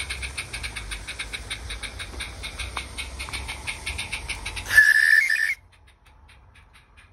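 A live-steam garden railway locomotive chuffs with rapid, even exhaust beats. A little under five seconds in it gives one short, loud, steady blast on its steam whistle, about a second long, which cuts off suddenly. The chuffing then carries on only faintly.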